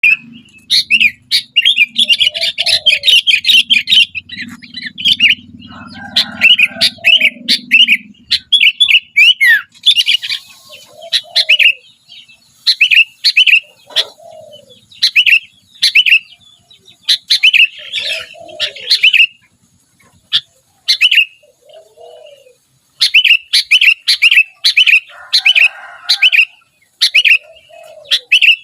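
Sooty-headed bulbul (kutilang) singing busily: rapid runs of bright chirping phrases broken by short pauses, with a lower, shorter note coming in every two seconds or so. A low rumble sits under the song for the first eight seconds or so.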